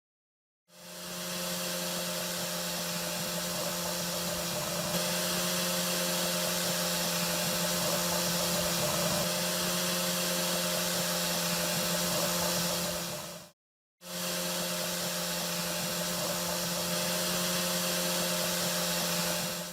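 Electric power tool motor running steadily with a constant hum and hiss. It cuts off briefly about two-thirds of the way through, then runs again.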